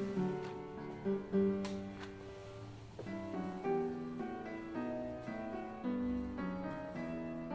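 Instrumental background music: a melody of held notes changing every half second or so, with a few faint ticks.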